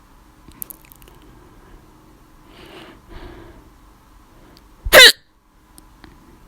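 A single loud, sharp hiccup from a person, about five seconds in, with a voiced catch. Two faint breathy sounds come a couple of seconds before it. The hiccups were brought on by laughing too much.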